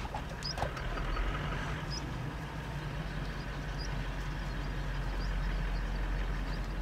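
Car engine idling steadily, with a few faint short high chirps over it.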